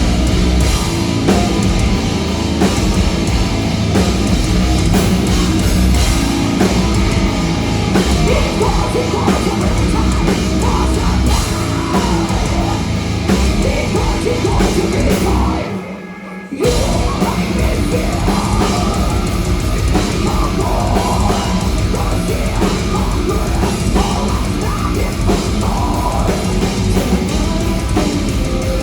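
Heavy metal band playing live and loud, with a driving drum kit. Just past halfway the music stops suddenly for about a second, then comes back in.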